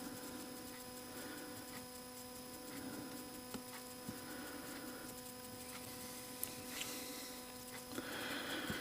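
Steady electrical hum with a few faint, scattered clicks from small metal parts of an impact driver's quick-change chuck being handled and fitted.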